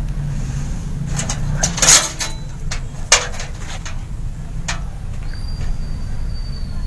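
Knocks and metallic clatter as a hard disk drive is handled and fitted into a computer case's drive bay, the loudest about two seconds in, over a steady low hum.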